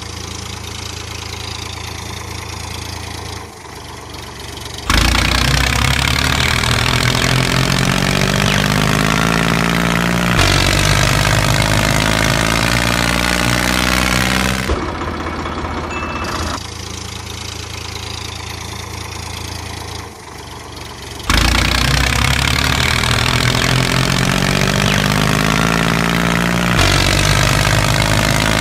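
Tractor engine sound effect. It idles quietly, then switches abruptly to a much louder run whose pitch climbs and holds, then cuts back to idle. This happens twice, as one looped clip.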